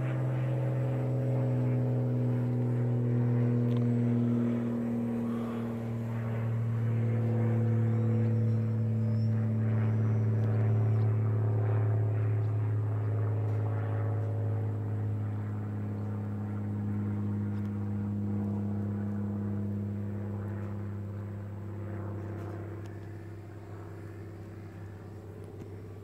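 Radio-controlled model airplane's motor and propeller droning in flight: a steady low hum whose pitch drifts slightly up and down, growing fainter over the last few seconds.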